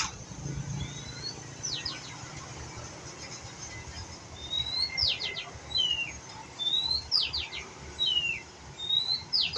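White-rumped shama singing one short phrase over and over, about every two seconds: a rising whistle, a quick run of three falling notes, then a lower falling note.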